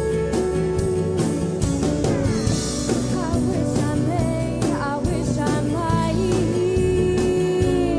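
Live country band playing a song with a steady beat of drums, guitars and pedal steel guitar, a woman singing lead over it.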